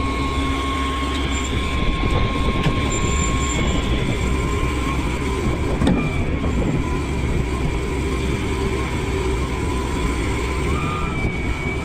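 A heavy vehicle's engine running steadily, with a steady high whine over the rumble, and a single knock about six seconds in.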